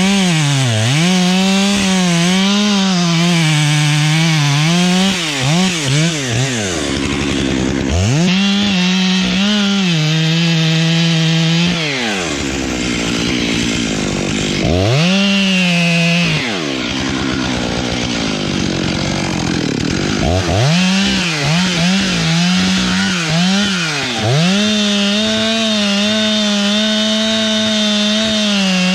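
Chainsaw cutting eucalyptus wood. The saw is revved to full throttle in four long bursts, its pitch sagging and wavering as the chain bites, and drops back to idle between the bursts.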